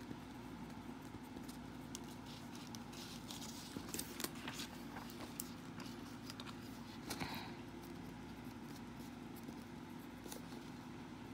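Pen scratching and tapping on paper as handwriting goes on, in short irregular strokes that come thickest in the middle, over a steady low hum.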